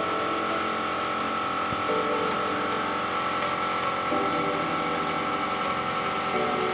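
A steady machine hum with a constant high whine, its lower tones shifting in steps about every two seconds.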